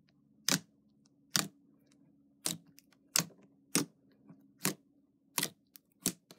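Fingers poking and squishing into a thick, glossy slime, making sharp sticky pops about eight times, roughly one every 0.7 s, over a faint steady hum.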